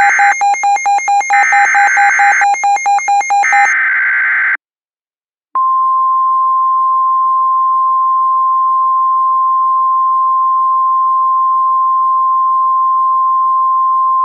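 Rapid chirping bursts of weather radio alert data for the first few seconds, then about a second of silence, then the steady single-pitch NOAA Weather Radio warning alarm tone from about five and a half seconds in. The alarm signals an incoming tornado warning.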